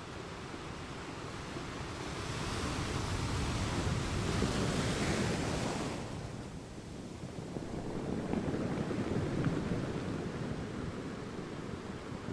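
Ocean waves surging and washing: one wave builds to a hissing rush about two seconds in and falls away sharply about six seconds in, then a second, duller surge follows.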